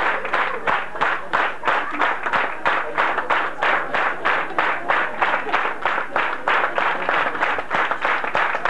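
Audience clapping in unison, a steady rhythm of about three claps a second.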